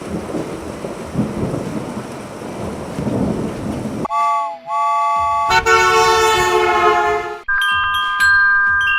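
A string of separate sound effects. First comes about four seconds of rumbling, noisy sound like thunder with rain. Then come short chime-like tones: two brief notes, a bright ringing swell, and a few steady bell tones with clicks.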